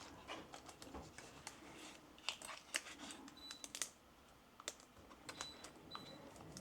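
Faint, irregular light clicks and taps of a small saw chain and guide bar being handled and fitted onto a cordless mini chainsaw, with a short lull about midway.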